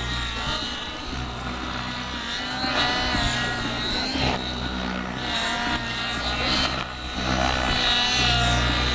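Radio-controlled helicopter flying, its rotor and motor whine wavering up and down in pitch as it manoeuvres.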